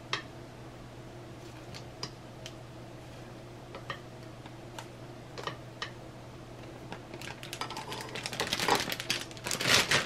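Wooden chopsticks clicking lightly as raw chicken pieces are lifted from a bowl and dropped into a plastic bag, a sharp tick every second or so. Near the end the thin plastic shaker bag crinkles louder and more continuously as it is handled. A faint steady hum runs underneath.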